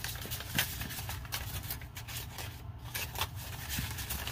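Paper banknotes and a paper envelope rustling and crinkling as bills are handled and slipped into the envelope by hand, in irregular short crackles.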